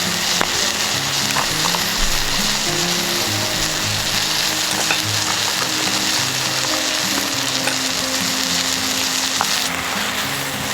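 Food sizzling and frying in a pan over a campfire, a dense steady hiss with scattered sharp pops, easing slightly near the end. Soft background music plays underneath.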